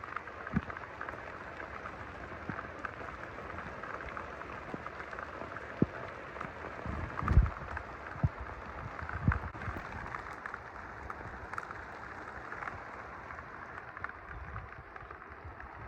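Steady heavy rain falling during a severe thunderstorm, with many small ticks of drops striking. A few short, low thumps come near the middle.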